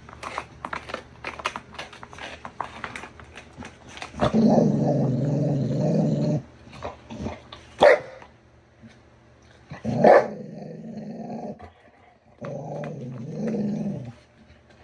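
A puppy growling in three long low growls, with two short sharp barks in between, while playing with its bone. Quick clicking and scraping sounds come before the first growl.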